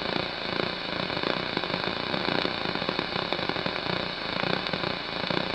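Analogue TV static: the steady crackling hiss of a television tuned to no signal.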